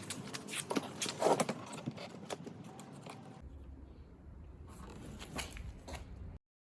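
Scattered clicks, knocks and scrapes of handling noise in a small room. A steady low hum comes in about halfway through, and the sound cuts off abruptly near the end.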